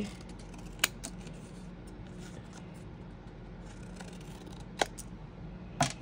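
Scissors cutting paper: quiet snipping, with a few sharp clicks of the blades about a second in and near the end.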